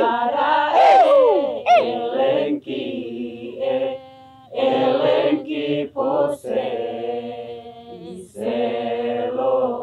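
A mixed group of men and women singing a chant together, unaccompanied, in held notes broken by several short pauses, with a quieter stretch about four seconds in.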